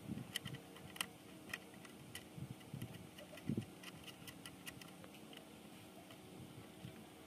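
Faint, scattered light clicks and rustling from wires and plastic harness connectors being handled, with a soft bump about three and a half seconds in.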